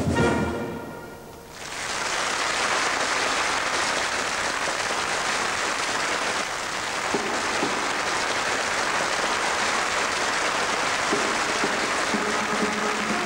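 A drum fanfare band's brass and drum music ends, and an audience applauds in a large hall. About eleven seconds in, band music starts up again under the applause.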